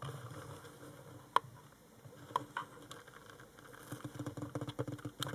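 A camera's built-in zoom motor whirring as the lens zooms in, in uneven spells, with a few sharp clicks between them.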